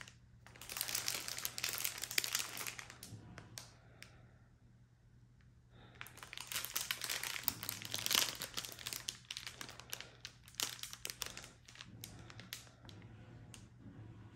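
Clear plastic bag packed with small bags of diamond-painting drills crinkling as it is handled and turned over, in two long spells with a quieter gap of about two seconds between them.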